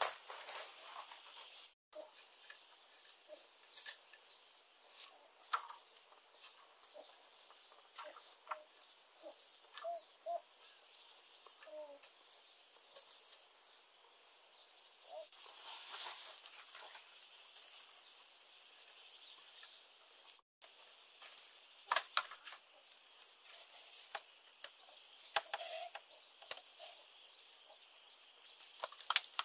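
Insects chirring steadily in the background. Scattered light taps and clicks come from bamboo being split and worked with a knife, with a few sharper clicks in the second half.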